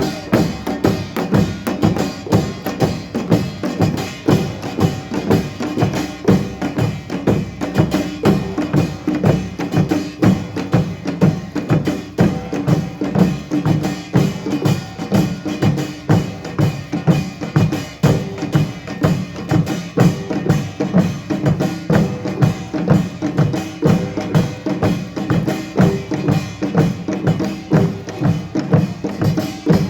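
Korean pungmul percussion ensemble of gongs and drums playing a steady, driving rhythm without a break.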